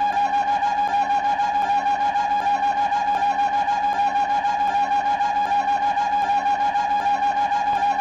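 A steady, reedy tone like a wind instrument, held on one pitch and pulsing evenly about four times a second: a looped cartoon sound effect for the mouse's walk.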